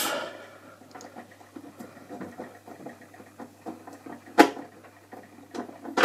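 Light scratching and handling noises of a hand on a plastic alarm control panel case, with one sharp click about four and a half seconds in.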